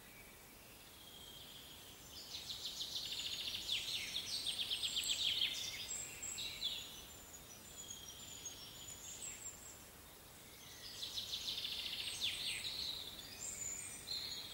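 A songbird singing in two trilled phrases, one about two seconds in and another about eleven seconds in, over faint outdoor background noise.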